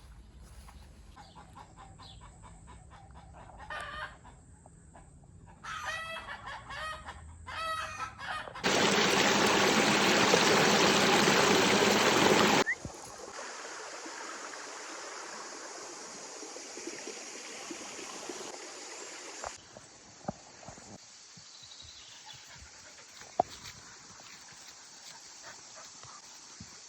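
A game bird calling: a few harsh, pitched calls between about four and eight seconds in. These are followed by a loud, even rushing noise lasting about four seconds, which then drops to a quieter hiss.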